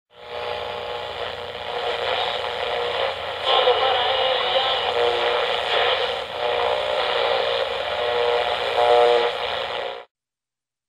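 Old-time radio sound, narrow in range like an AM receiver: a steady hiss and hum with wavering tones that rise and fall in loudness, cutting off suddenly about ten seconds in.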